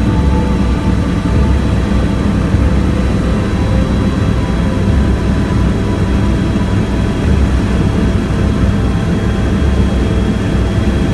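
Helicopter cabin noise in flight: a steady, loud low rumble of rotor and engine, with a faint steady high whine above it.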